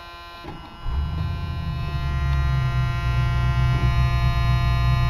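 A 1978 Ford LTD's V8 engine running as the car gets under way, a steady low sound that comes up about a second in, with a steady hum of several even tones over it.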